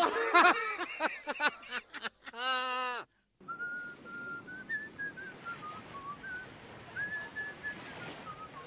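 Short burst of voice-like pitched calls, then after a brief gap a person whistling a simple wandering tune over faint outdoor hiss.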